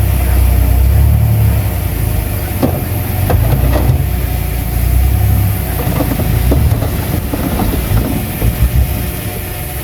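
Bulldozer's diesel engine running with a heavy low rumble, broken by scattered metallic clanks and a few short thumps; the rumble eases off near the end.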